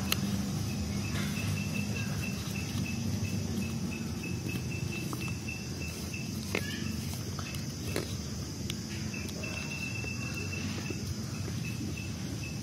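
Insects chirring: a steady high buzz with a rapid pulsed chirp that stops and starts, over a low background rumble. A few soft taps and rustles of craft paper being creased come through now and then.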